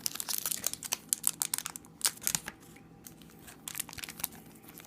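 Crinkling and tearing of a trading card pack's foil wrapper as it is opened, in quick crackly bursts that are busiest in the first two seconds.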